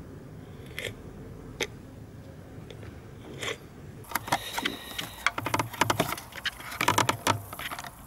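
Hard plastic clicks and scrapes from handling the hazard light switch and its dashboard housing. A few separate clicks come first, then a dense run of rapid clicking and scraping from about four seconds in.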